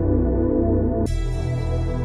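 Calm ambient background music of steady held tones; about halfway through it changes abruptly, suddenly becoming brighter.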